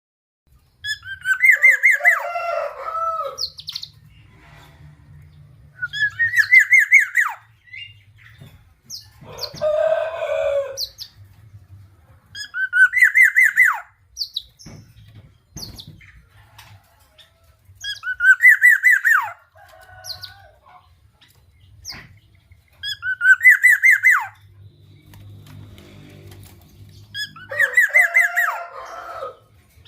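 Female black-naped oriole (kepodang) calling: seven chattering phrases a few seconds apart, each a quick run of sharp rising and falling notes, with one harsher, scratchy call about ten seconds in. A faint low hum lies under the pauses.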